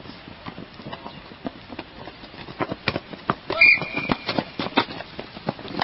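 A sports whistle blows one short, steady blast about three and a half seconds in, over a string of irregular thumps and knocks.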